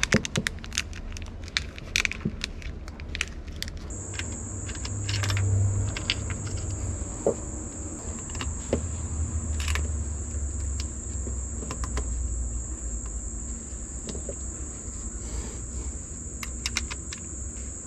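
Small clicks and rattles of electrical wires, connectors and corrugated plastic conduit being handled while a bilge pump's leads are connected at a boat battery. A steady high-pitched insect drone comes in about four seconds in.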